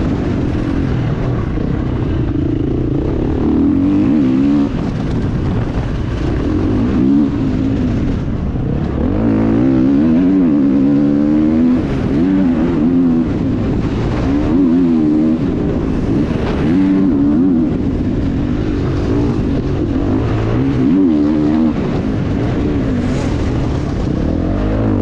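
Motocross bike engine heard from the rider's seat, revving up and dropping back again and again as the rider accelerates, shifts and rolls off through the track's straights and corners.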